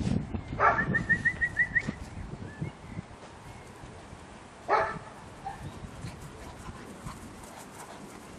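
Spaniel giving a quick run of high yips about half a second in, then one short bark near the middle. There are low thumps at the start.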